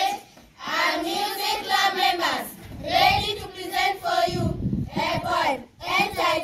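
A group of children singing together in unison, in short phrases with brief pauses between them.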